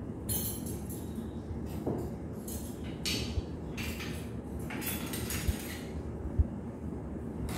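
Scrap pizza dough being peeled and pulled up off a floured stainless steel worktable: a series of short scraping, rustling sounds, then two dull thumps near the end, over a steady low hum.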